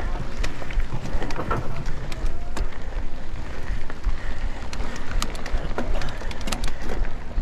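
Mountain bike riding over a dusty dirt track: tyres crunching on loose gravel with many scattered clicks and rattles from the bike, over a steady rumble of wind on the microphone.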